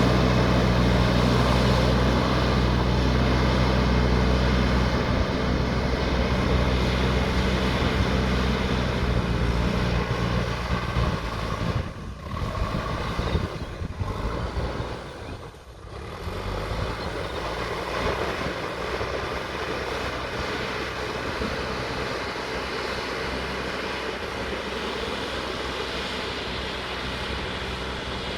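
JCB backhoe loader's diesel engine running, heavy and steady for about the first ten seconds, then dropping away briefly twice and settling to a quieter, steady run.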